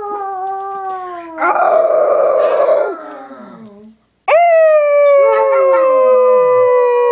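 Dogs, a Yorkie-poodle mix and a basset hound, howling in long, slowly falling notes. A louder, rougher howl comes in the middle. After a brief break about four seconds in, one long steady howl runs on while a second howl slides down in pitch beneath it.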